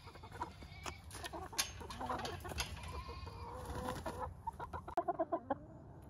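Backyard hens clucking and calling softly among themselves, with a quick run of short clucks about five seconds in.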